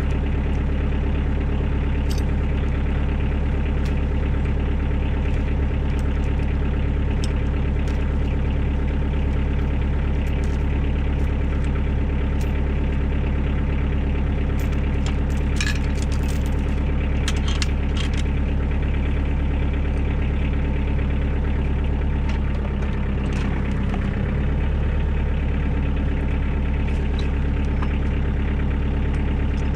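Kioti DK40 tractor's diesel engine running steadily, with a few light clicks and rattles about halfway through. The engine note dips briefly about three-quarters of the way in.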